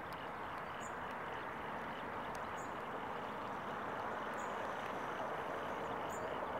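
Steady hiss of rain falling, with a bird giving a short high chirp four times, evenly spaced.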